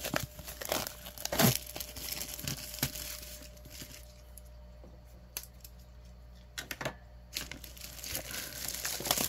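Plastic shrink wrap on a cardboard box being slit with a craft knife and pulled off, crinkling and tearing in sharp crackles. There is a quieter stretch about four to six seconds in.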